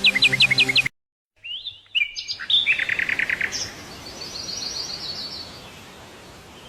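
Wild birds calling: a run of quick high chirps breaks off about a second in, then after a short gap come rising whistled calls, a fast series of about ten notes, and a higher trill that fades out.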